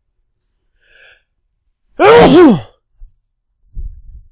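A man sneezes once, loudly, about two seconds in: a short voiced burst whose pitch rises and falls away, with a hissing blast of air.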